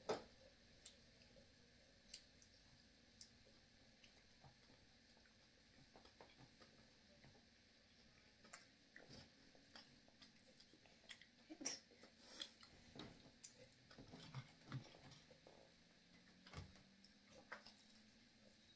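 Near silence with faint eating sounds: quiet chewing and scattered small clicks and taps as food is picked up from a serving tray, a little busier just past the middle.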